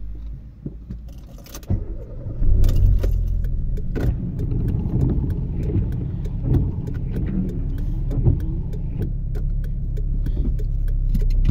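Inside a car in the rain: the car's low steady rumble, louder from about two and a half seconds in, with raindrops ticking on the windshield and the wipers sweeping the glass.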